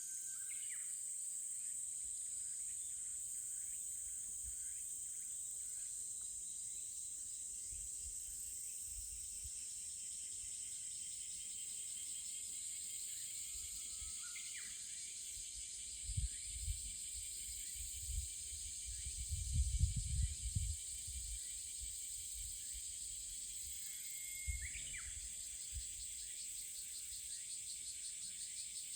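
Steady high-pitched insect chorus, with a few short chirps and some brief low rumbles around the middle.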